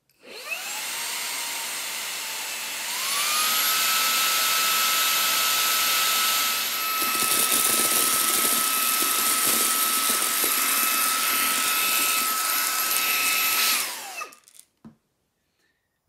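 Xiaomi Mijia handheld mini vacuum cleaner's brushless motor spinning up with a rising whine and running on its low setting, then stepping up to its higher setting about three seconds in, louder and higher-pitched. Coffee beans rattle as they are sucked into the clear dust bin through the middle part, and the motor winds down and stops near the end.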